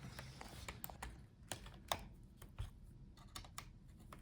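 Faint, scattered light clicks and taps of small plastic and metal parts being handled inside an opened laptop, as the battery connector is slid out of its socket.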